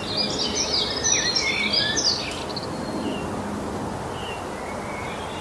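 Birds chirping over a steady outdoor hiss. The calls come thick and overlapping for the first two seconds or so, then thin out to a few scattered chirps.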